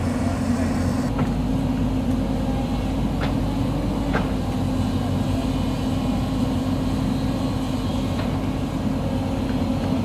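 Diesel engine of a Hyundai crawler excavator running steadily under load as it digs into a dirt hillside, with a few faint clicks of the bucket working the soil.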